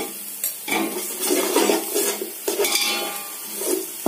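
Steel skimmer ladle scraping and clinking against the inside of a stainless steel pot in irregular strokes, stirring garlic, mustard seeds and turmeric frying in hot oil.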